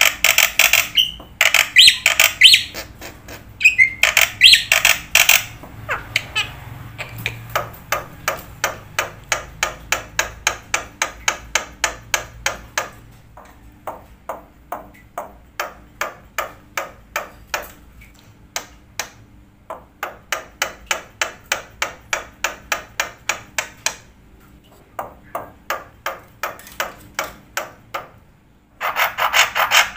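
Rapid, evenly spaced taps or clicks, about three to four a second, in runs of several seconds with short pauses between, louder and brighter in the first few seconds.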